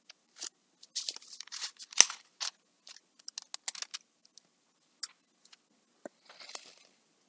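Pages of a Bible being leafed through: a scatter of quick paper rustles and flicks, thickest in the first few seconds, with a softer rustle near the end.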